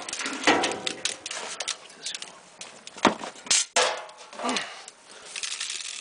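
Clinks, clatter and scraping as hot raku pieces are handled and covered in sawdust, with a sharp crack about three and a half seconds in.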